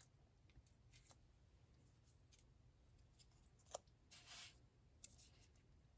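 Near silence, with faint sounds of small paper pieces being handled: a few light ticks and a brief soft rustle of paper a little past the middle.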